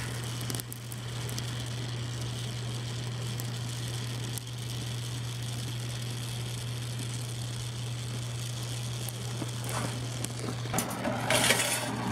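Oxy-acetylene welding torch flame hissing steadily as it melts a puddle into thin steel, over a steady low hum. Near the end a louder, harsher rush of noise.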